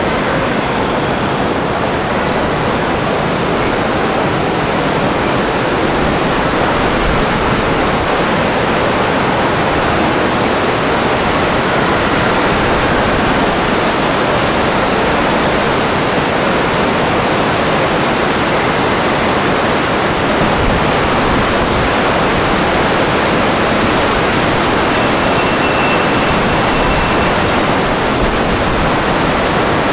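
A loud, steady rushing noise that never lets up, with a faint high tone briefly near the end.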